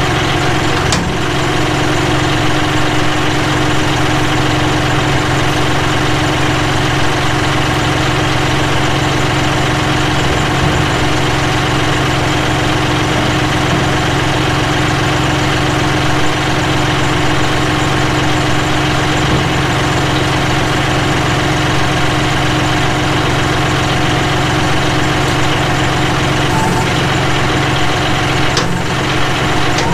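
John Deere utility tractor's diesel engine idling steadily while parked, a constant even hum.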